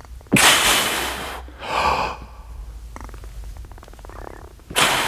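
A man's loud, sharp breaths during heavy barbell back squats, twice about four seconds apart, with a weaker breath between. These are the big bracing breaths a lifter takes to brace his belly before each rep.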